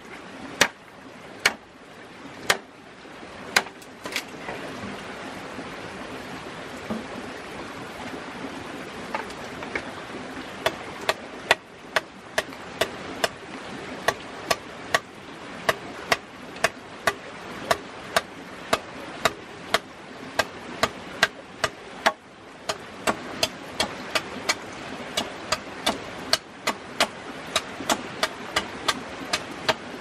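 Large bush knife chopping into green bamboo laid on a log: sharp knocks, a few about a second apart, then after a pause of several seconds a steady run of about two a second.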